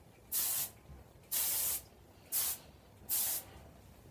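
Aerosol hairspray can sprayed in four short hissing bursts, each about half a second long, roughly one a second.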